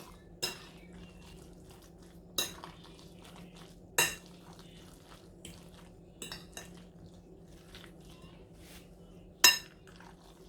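A utensil stirring a thick egg and broccoli mixture in a bowl, knocking against the bowl in sharp ringing clinks about six times at irregular intervals, the loudest near the end, with faint scraping between. A steady low hum runs underneath.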